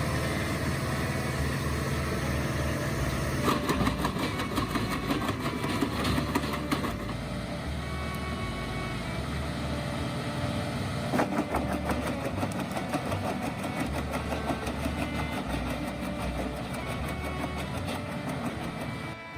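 Wood chipper driven from a tractor's PTO, running steadily while it chips branches, with bursts of sharp cracking as the wood is fed and broken up, strongest about four to seven seconds in and again around eleven seconds.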